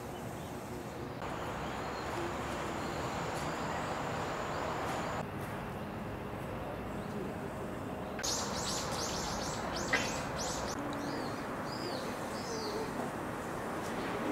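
Outdoor background hiss; about eight seconds in, a bird gives a quick run of high chirps, followed by a few scattered call notes, with a sharp click around ten seconds in.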